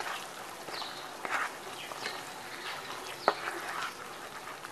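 A spatula stirring a thick, freshly spiced masala gravy in a nonstick pan, giving soft, irregular scraping and squelching strokes.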